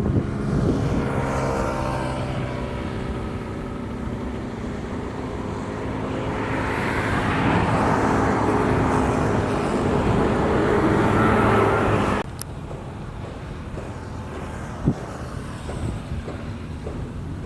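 A motor vehicle's engine running close by, its sound swelling louder for several seconds and then cutting off abruptly about twelve seconds in, leaving a quieter background.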